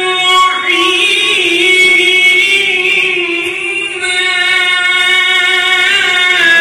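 A man's melodic Quran recitation (tilawat) into a handheld microphone: long held, ornamented notes with a wavering pitch, sung in one continuous phrase that eases off briefly about three to four seconds in.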